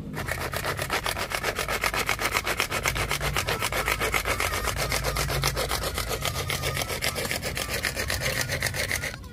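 Hand-pull string chopper (blender tarik) worked over and over in a fast, even rhythm, its spinning blades rattling as they chop raw turmeric, ginger, garlic and shallots into spice paste.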